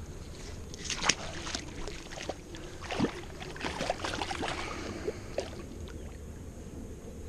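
Shallow water splashing and sloshing with scattered clicks and knocks, as trout held on a stringer move in the water at the shore. The two loudest splashes come about one and three seconds in.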